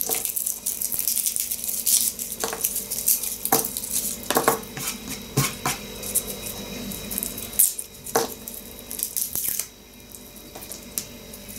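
Garlic being pulled apart and peeled by hand, its dry papery skin crackling and rustling in quick irregular bursts, with a few light knocks in between.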